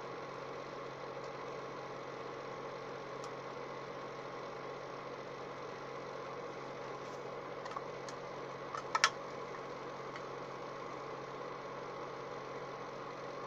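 Steady mechanical hum of background room noise, even throughout, with a few short clicks about nine seconds in.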